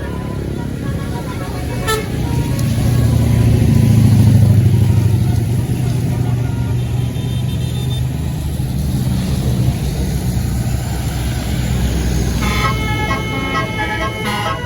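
A tour bus's engine running as it passes, loudest about four seconds in. From about twelve seconds in, a telolet multi-tone musical horn (Basuri type) plays a run of notes.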